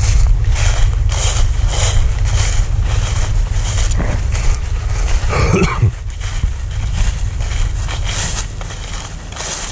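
Footsteps crunching through dry fallen leaves at a steady walking pace, about two steps a second, over a low rumble of wind buffeting the microphone. There is one brief louder sound about halfway through.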